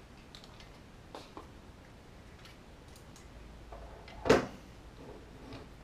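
Handling noise as a model locomotive chassis is turned over by hand: a few faint clicks, then one sharp knock about four seconds in.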